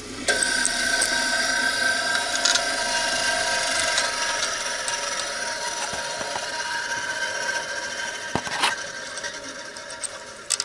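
A machine running with a steady, even hum that comes in suddenly and slowly fades, with a few sharp metal clinks near the end as metal parts are handled.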